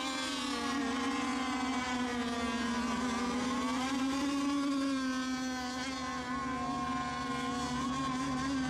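Radio-controlled racing boats running at speed, giving a steady high motor buzz whose pitch wavers slightly as they run the course.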